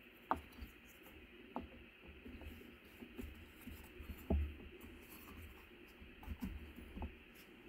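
Hands seating the large plastic gear wheel of a TRULAP 8552 adjustable dumbbell's selector mechanism into its housing: faint scraping with a few light clicks and knocks of plastic on plastic, the loudest about four seconds in.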